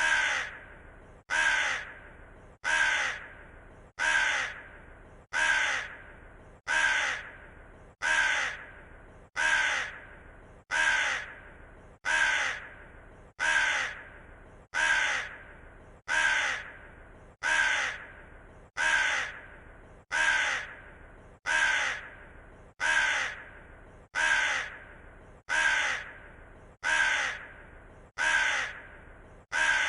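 Raven cawing over and over at an even pace, one harsh caw about every second and a third, each starting sharply and fading away slowly.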